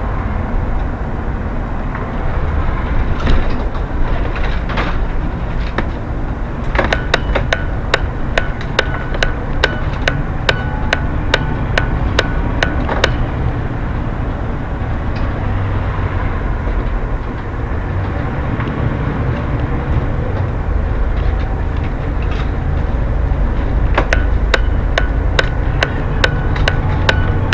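Bus driving, heard from the driver's cab: steady low engine and road rumble. A run of sharp clicks or rattles comes in about seven seconds in and lasts several seconds, and another comes near the end.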